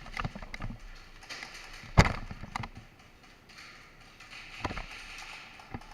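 Airsoft Glock pistol firing: one sharp, loud shot about two seconds in, with softer clicks and knocks around it.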